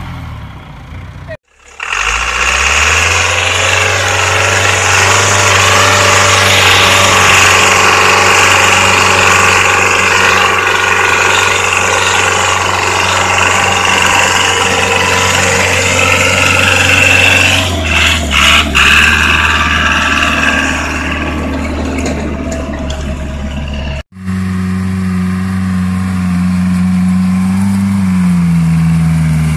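ARO 4x4 off-roader engine held at high, steady revs while the vehicle pushes through deep snow, with a few sharp knocks partway through. After an abrupt cut, an ARO pickup's engine labours in deep mud, its pitch rising and then falling near the end.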